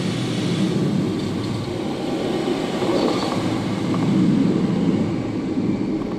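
Steady rushing of airflow over the canopy and airframe of a Schleicher ASW 27 sailplane, with no engine, as it dives and pulls up into a loop at high speed. The rush swells briefly about four seconds in.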